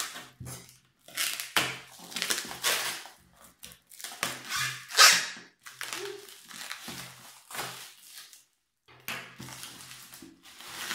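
Plastic wrapping rustling and crinkling in repeated bursts as a wrapped mug is unwrapped by hand, loudest about five seconds in, with a short pause near the end.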